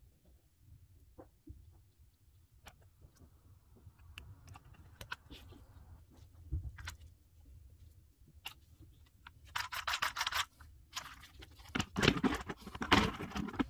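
Handling noise of a small plastic toy tow truck: faint clicks and rustles as it is turned over in gloved hands, then, from about two-thirds of the way in, a louder stretch of rattling and knocks as it is set down and moved about on a wooden tabletop.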